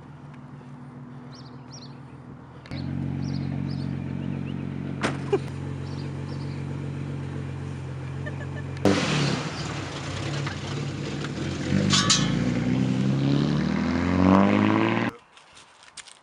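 A car engine starts running steadily about three seconds in and grows louder partway through. Near the end it revs up, its pitch rising, then cuts off abruptly.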